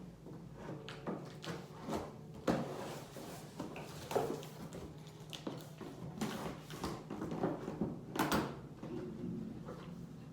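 Cardboard box and packaging being handled and opened: irregular scrapes, knocks and rustles, with sharper knocks a few times.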